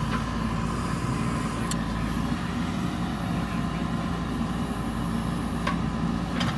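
Diesel engine of a JCB backhoe loader running steadily at work, with a few short sharp clicks or knocks over it.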